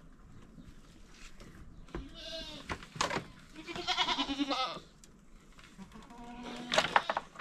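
Goats bleating: three long, wavering calls, the middle one the longest, with a few sharp knocks between them and a loud one near the end.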